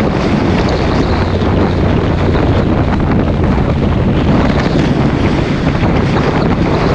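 Loud, steady wind noise buffeting the microphone of a camera on a moving motorcycle, with a low steady drone from the bike's engine and tyres underneath.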